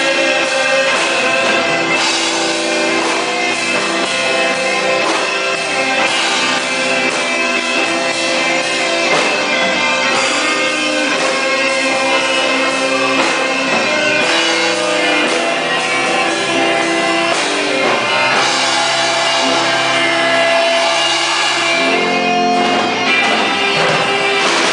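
A drum kit played along to a recorded rock-style religious song with guitar.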